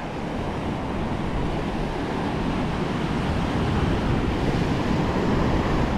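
Ocean surf washing onto a sandy beach, a steady rushing that swells gradually, with wind rumbling on the microphone.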